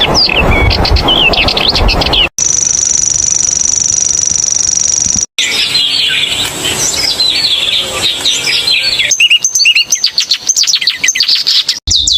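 Songs of several different small songbirds, one after another with abrupt cuts: quick varied chirping phrases, then about three seconds of one steady, very high insect-like reeling trill typical of a grasshopper warbler, then more fast, scratchy, varied warbling.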